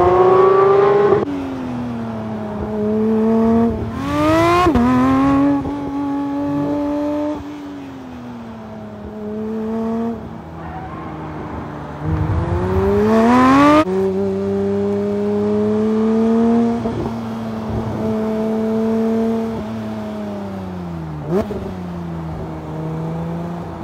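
2021 Porsche 911 GT3 (992)'s naturally aspirated 4.0-litre flat-six revving hard under acceleration. Its pitch climbs steeply and then drops sharply at each upshift, three times, with off-throttle stretches where the pitch sinks slowly. A quick rev blip comes near the end.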